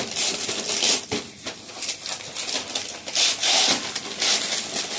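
Wrapping paper being torn and crumpled as a present is unwrapped: an irregular run of crackling paper rustles, with several louder surges.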